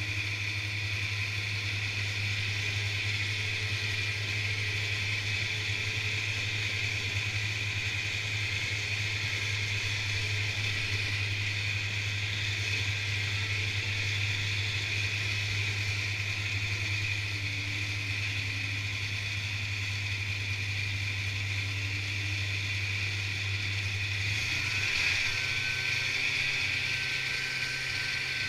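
Snowmobile engine and track running steadily at trail speed. About 24 seconds in, the engine note shifts and a higher steady whine comes in.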